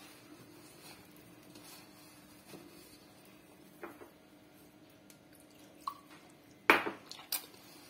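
A hand squeezing and working rice flour and water into dough in a plastic bowl, soft squishing. Near the end come a loud sharp knock and a smaller one.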